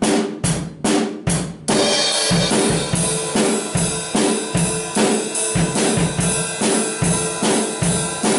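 Acoustic drum kit being played: a few heavy, evenly spaced drum hits, then from about two seconds in a steady beat with the cymbals ringing throughout.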